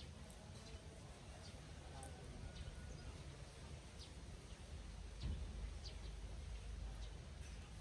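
Faint outdoor ambience: a steady low rumble with scattered short, high ticks or chirps, and a soft thump about five seconds in.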